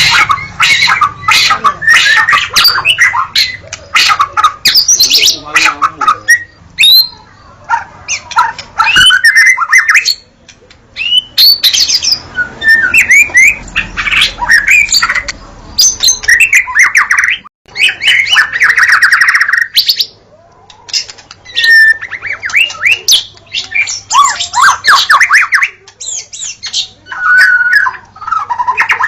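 White-rumped shama (murai batu) singing a loud, varied song of clear whistles, rapid trills and harsh chattering notes, phrase after phrase with only brief pauses.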